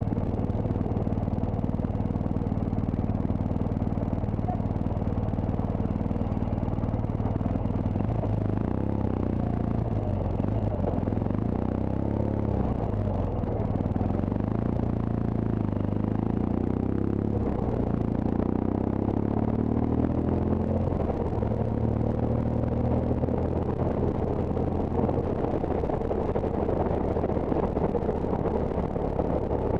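Motorcycle engine running while riding on a rough road, with the engine note changing in the middle as the revs drop and rise again.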